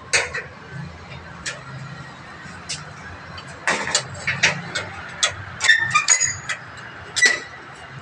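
Footsteps going down concrete stairs: a run of sharp, uneven slaps, a few at first and then quicker from about halfway in, over a low steady hum.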